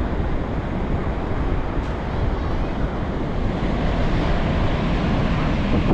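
Pacific Ocean surf washing in steadily, with wind buffeting the microphone in a low rumble.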